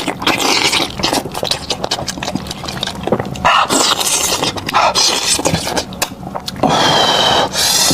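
Close-miked eating of gelatinous beef trotter: wet chewing and sticky lip-smacks in quick succession, with a longer slurping suck near the end.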